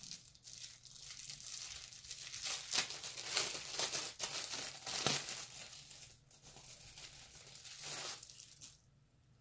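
Packaging around a folded cloth being handled and pulled open, a continuous rustling and crinkling with sharper tearing strokes now and then, stopping shortly before the end.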